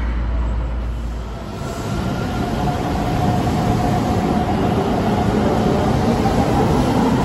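Low steady hum inside an electric train's cab. About one and a half seconds in it gives way to a red Keikyu electric train running past a station platform, its wheels rumbling on the rails with a faint motor whine, growing louder.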